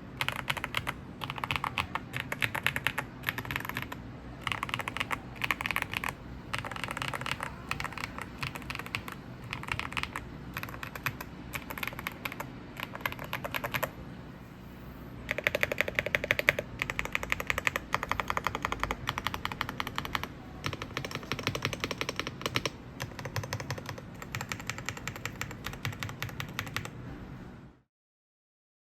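Typing on a VGN V87 Pro mechanical keyboard with silver switches: fast runs of keystrokes in bursts, with brief pauses between them. The typing cuts off near the end.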